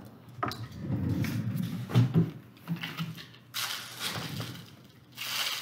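Plastic air-pillow packaging and foam wrap rustling and crinkling as hands handle the doll forms and set them down on the mat, with soft knocks; two louder bursts of crinkling come in the second half.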